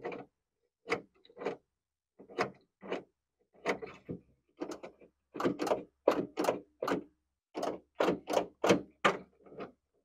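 Honda Ridgeline tailgate latch and its linkage rods being worked over and over: a run of short metallic clicks and clunks, about two a second and coming closer together in the second half, as the newly installed tailgate lock is tested.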